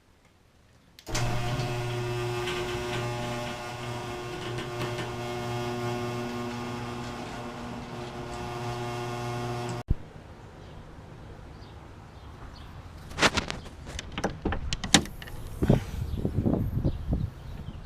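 A steady mechanical hum with a fixed pitch starts abruptly about a second in and cuts off sharply after about nine seconds. After that come a series of sharp clicks and knocks.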